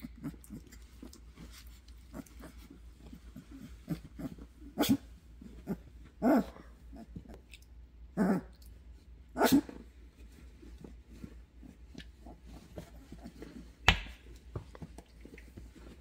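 Two-and-a-half-week-old Doberman puppies giving short cries, about four of them between about five and ten seconds in, with soft shuffling on bedding in between. A short sharp click sounds near the end.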